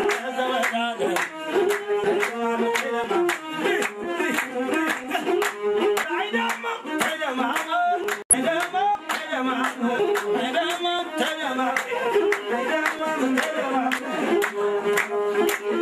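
Ethiopian wedding song: singing over a melodic instrument, with the crowd clapping in time, about three claps a second. The sound drops out for a split second about halfway.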